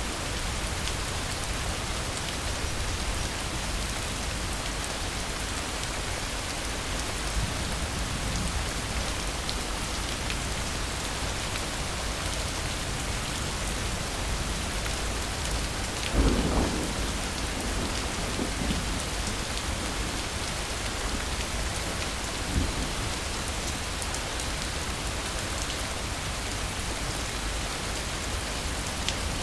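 Steady rain pouring down. A clap of thunder breaks in about halfway through and rumbles off over a couple of seconds, with a smaller one a few seconds later.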